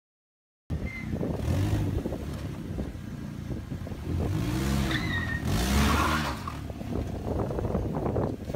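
A car engine running and revving, its pitch rising and falling several times over a low steady hum, with street noise. It starts suddenly under a second in.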